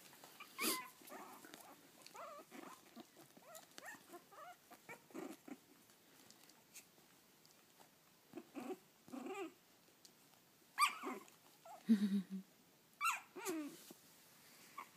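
Young puppies whimpering and squeaking in short scattered calls, some rising and falling in pitch, with a few lower grunts; the calls grow louder in the second half.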